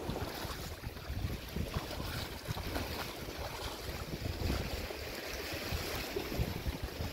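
Shallow seawater splashing and sloshing as a person wades among rocks, with wind buffeting the microphone.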